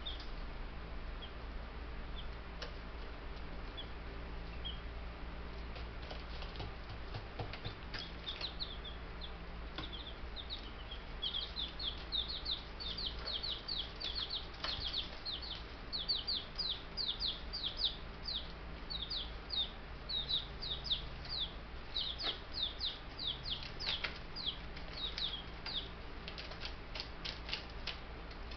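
Young Buff Brahma chicks peeping: many quick, high, falling peeps, scattered at first and becoming a busy, continuous run of calls from about eight seconds in. A low steady hum runs underneath.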